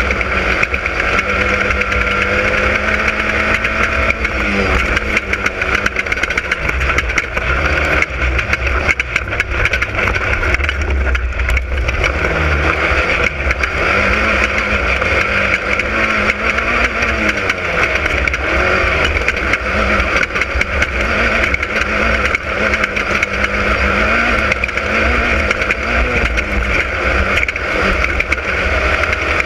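Class 10 off-road race car's engine running hard, its pitch holding for a few seconds and then rising and falling again and again with the throttle, over a constant rush of noise with frequent knocks.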